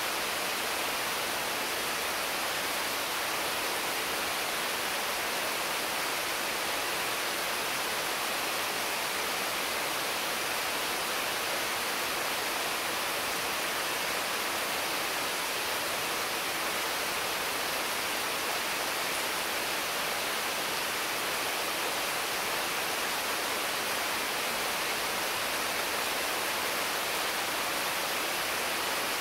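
Heavy rain falling steadily on the leaves of mango and papaya trees, an even hiss with no thunder or single drops standing out.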